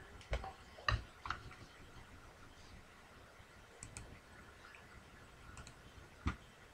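Scattered sharp clicks of someone working a computer: about six, three close together in the first second and a half, a higher, lighter pair about four seconds in, and a loud one near the end.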